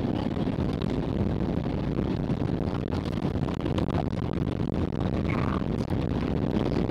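Steady low rumble inside the cabin of an Airbus A321 rolling along the runway after landing.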